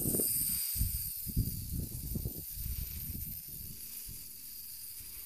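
WL Toys V959 mini quadcopter's motors and propellers giving a steady high whine and hiss, with wind buffeting the microphone in gusts that die down after about three and a half seconds.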